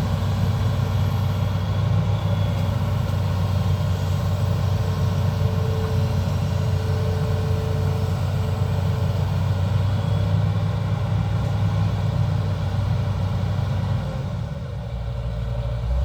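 Diesel engine of an amphibious excavator running steadily with a deep hum, easing off briefly near the end before picking up again.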